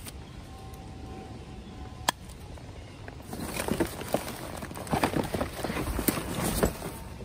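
Paper and cardboard rustling and crackling as gloved hands dig through a box of old letters and newspapers, busy and irregular from about three seconds in, with one sharp tap about two seconds in.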